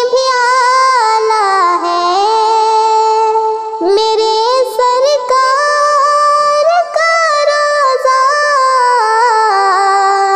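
A female voice singing an Urdu devotional nazam, drawing out long, ornamented notes with only brief breaks for breath.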